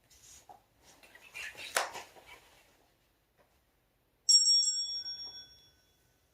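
Rustling with one sharp tap, then a small bell struck once a little past four seconds in, ringing with several clear tones and fading within about two seconds: the timer bell that signals the change to the next stretch.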